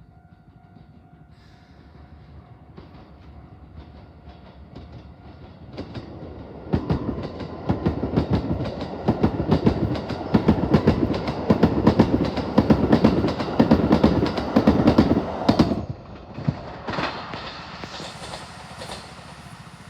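Eight-car Keikyu electric train passing over a level crossing, its wheels clattering over the rail joints in quick, even clicks. The sound builds, is loudest through the middle, and drops away sharply near the end after a last short burst.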